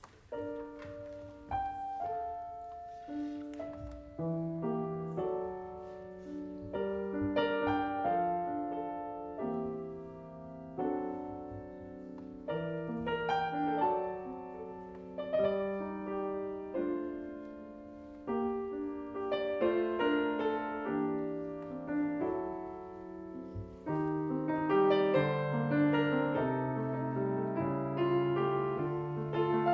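Grand piano playing solo: a melodic line over chords, each note struck and ringing away, in phrases that swell and ease off and are fullest in the last few seconds.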